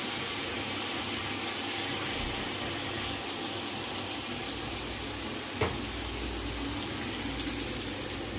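Pork steaks sizzling steadily in a grill pan, with one sharp tap about halfway through.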